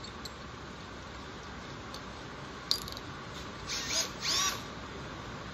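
A Milwaukee cordless drill being readied at low volume: a single click about two and a half seconds in, then two short whirs close together about a second later, each with a pitch that rises and falls.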